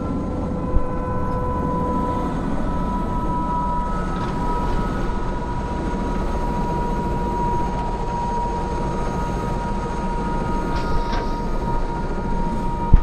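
Airbus H125 helicopter's turboshaft and rotor running steadily as heard in the cockpit: a deep rumble under a steady high turbine whine. A brief knock comes about a second in and a louder one near the end.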